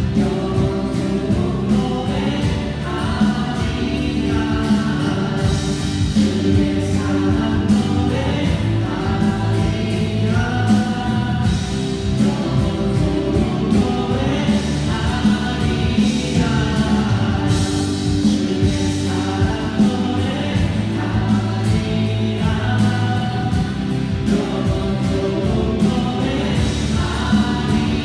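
Many voices singing a Korean worship song together, in phrases of a few seconds each, over a steady instrumental accompaniment.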